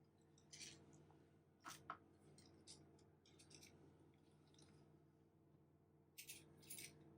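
Near silence: a faint steady hum with a few soft clicks and ticks scattered through it.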